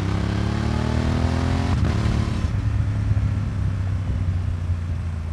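Honda XL750 Transalp's parallel-twin engine through an aftermarket exhaust, accelerating with the revs climbing for nearly two seconds. After a brief break it carries on at a lower, steadier note, as after an upshift.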